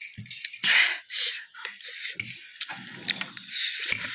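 Fork or spoon clinking and scraping against a bowl of noodles while eating, in scattered sharp clicks with a few short noisy rustles.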